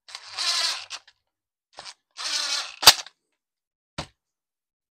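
Cordless impact driver running screws in: two short bursts of rattling, each under a second. A sharp click follows right after the second burst, and a short knock comes about a second later.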